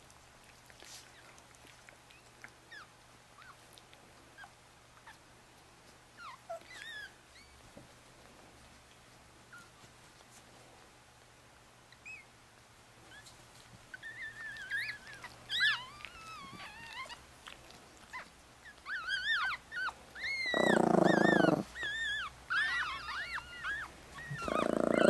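Four-day-old Chihuahua puppies squeaking and whimpering in thin, high, wavering cries. The cries are sparse at first and come thick and fast in the second half, with two louder, lower cries near the end.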